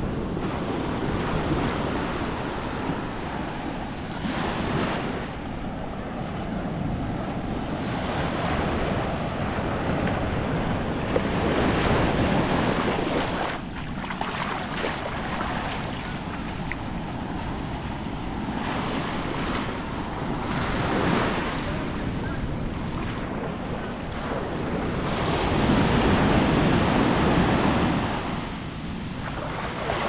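Atlantic surf breaking on the shore and washing foaming water up over the sand, swelling and ebbing with each wave. It is loudest about twelve seconds in and again near the end.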